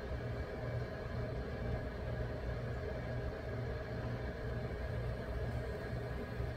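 EMD GP35 diesel locomotive's turbocharged V16 engine rumbling as it works slowly through a tunnel: a steady low throb over hiss.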